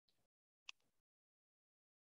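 Near silence, broken by one faint, brief click about two-thirds of a second in.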